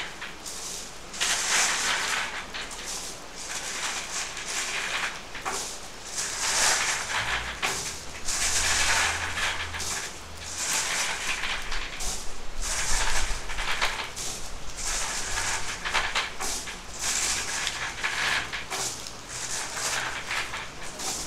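Rain falling, its hiss rising and fading in waves every second or two. A low rumble runs underneath twice, from about seven to ten seconds in and again around twelve to fourteen seconds.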